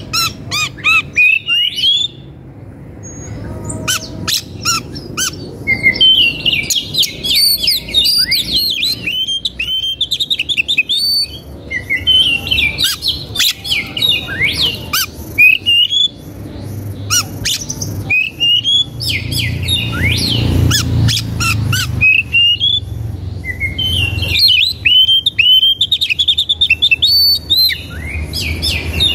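Birds chirping without pause: many short, overlapping calls with sharp clicks, over a low rumble that grows louder about two-thirds of the way through.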